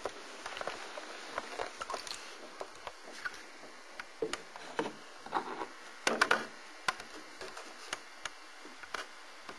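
Irregular light knocks and rustles, with a cluster of louder ones about six seconds in.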